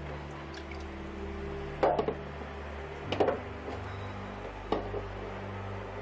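Firm green plums (maesil) knocking against one another and the steel bowl as a hand rummages through them, with three sharp clacks about a second and a half apart, over a low steady hum.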